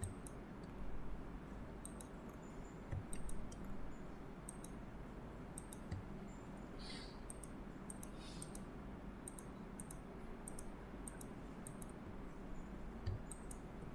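Computer mouse clicking: a string of short, irregular clicks over a steady low background hum, with a few soft thumps.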